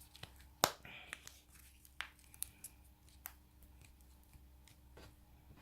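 A few sharp small clicks and taps from handling a smartphone's parts and tools during a repair, the loudest just over half a second in, over a faint steady hum.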